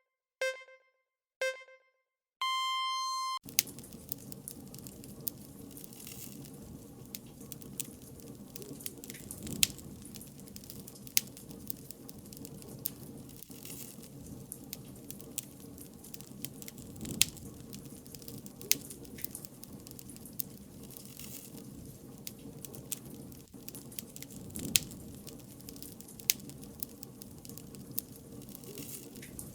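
Three electronic countdown beeps, two short lower ones a second apart and then a longer higher one, sounding the start of the timer. Then a wood bonfire burning with a steady crackle and frequent sharp pops.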